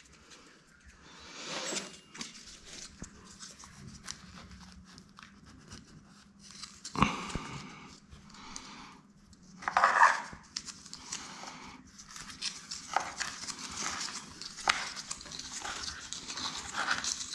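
Hand-handling noise from tap-fitting work at a wall outlet: fabric rustling, small clicks and taps of fittings, a sharp knock about seven seconds in and a louder rustle about ten seconds in.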